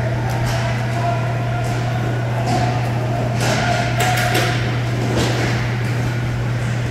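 Inline hockey play: irregular sharp knocks and clacks of sticks and a puck on the plastic rink floor, over a steady low hum.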